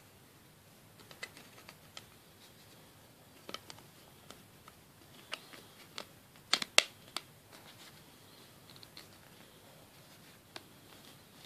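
A soft TPU inner case and a hard plastic outer shell of a phone case being handled and pressed together: scattered small plastic clicks and taps, the loudest pair about six and a half seconds in, with light rubbing between them.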